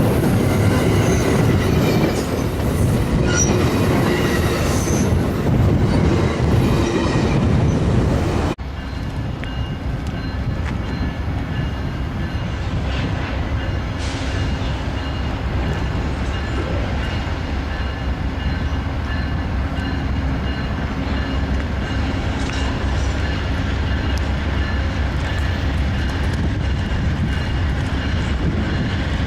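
A train running, a continuous rumble with several steady high tones over it. About eight and a half seconds in the sound turns suddenly quieter and duller, then carries on steadily.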